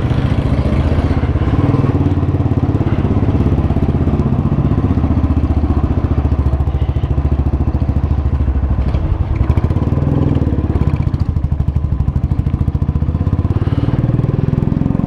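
Motorcycle engine running steadily, with little change in engine speed, heard from on the bike.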